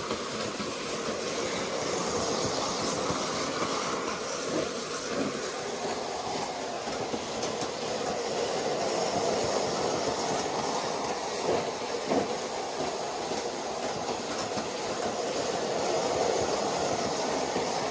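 Electric G-scale Thomas the Tank Engine model locomotive running around a loop of track pulling coaches and freight trucks: a steady whirring rumble of motor and wheels with occasional clicks. It grows louder as the train passes close by.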